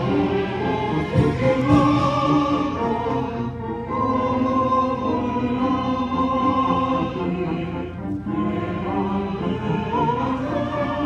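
Choral and orchestral music, with a choir singing long held notes over an orchestra.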